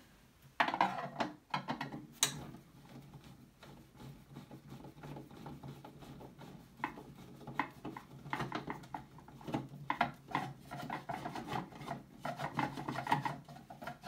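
Hands rubbing and scraping against the plastic case of an Apple Monitor III, an irregular rasping with many small knocks and clicks, over a steady low hum.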